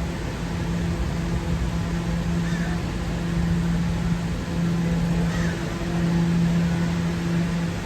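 Steady hum and rumble of a New York City subway A train, with a constant low drone underneath.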